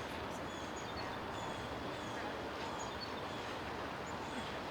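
Steady rushing outdoor background noise, with faint, short high chirps of small birds scattered through it.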